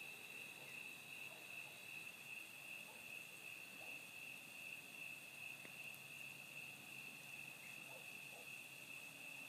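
A steady, unbroken high-pitched insect chorus, faint, with a few soft pops from the embers of a campfire.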